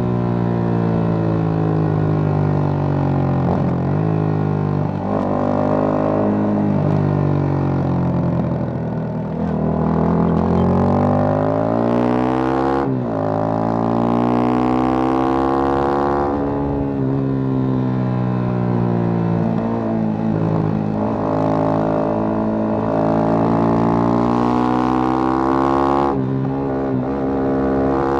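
Yamaha FZ25's single-cylinder engine through an aftermarket MTG MotoTunings exhaust, under way: its pitch climbs as the bike accelerates, then drops sharply at each upshift, several times over.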